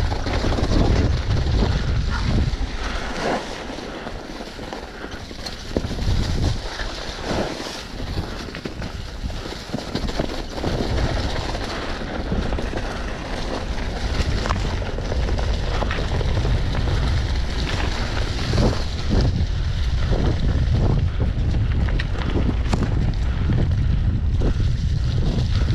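Wind buffeting the action camera's microphone while a mountain bike descends a rough downhill trail, with many short sharp knocks and rattles of the bike over the ground. The wind rumble eases off for a few seconds after the start, then builds back up and holds through the second half.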